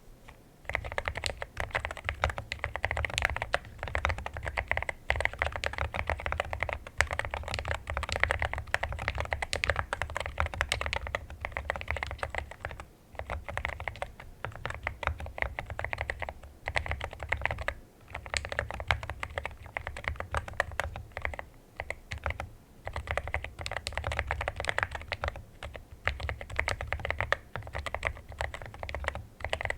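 Rapid typing on a mechanical keyboard fitted with Akko Rosewood switches, a dense run of keystrokes with a few short pauses, around 13 and 18 seconds in.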